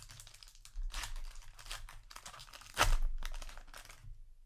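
A foil trading-card booster pack wrapper crinkling and tearing in several rustling bursts, the loudest about three seconds in.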